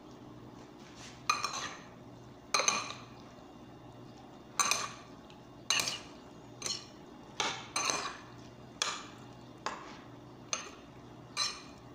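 Metal spoon clinking against a glass bowl as a vegetable salad is tossed: about eleven sharp, irregular clinks roughly a second apart, starting a little over a second in.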